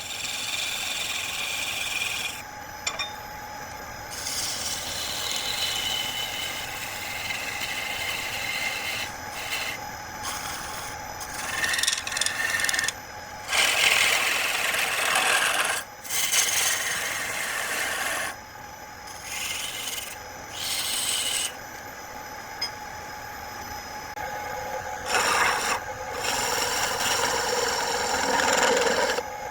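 A cutting tool scraping into wood spinning on a lathe, in repeated passes of one to a few seconds each, over a steady faint hum.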